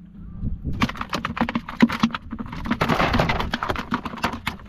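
Freshly caught barracuda flapping in a plastic basket, their bodies and tails slapping the plastic in a rapid, irregular run of sharp taps.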